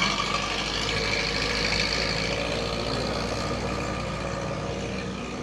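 Jeep engine running steadily at idle, fading slightly toward the end.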